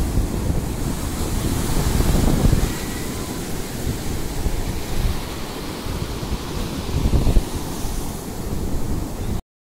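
Ocean surf breaking and foam washing up the sand, with wind buffeting the microphone in gusts. The sound drops out briefly right at the end.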